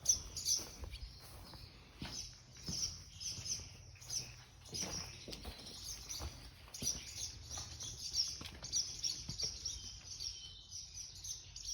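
Many small birds chirping and twittering continuously, high-pitched, with scattered soft knocks underneath.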